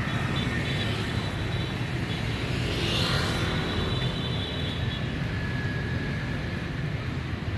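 Street traffic, a steady low rumble of motorbikes and cars, swelling briefly about three seconds in.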